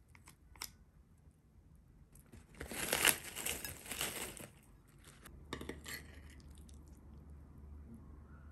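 Plastic packet of seasoned laver flakes crinkling as it is shaken out over a bowl, loudest for a couple of seconds in the middle. A few light clicks and taps come before and after it.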